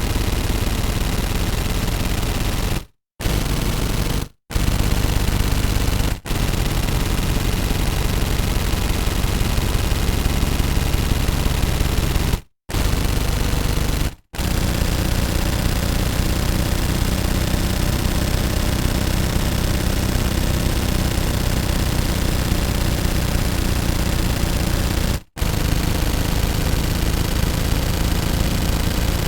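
Submachine gun firing on full automatic in long, rapid, continuous bursts, broken by a few brief pauses.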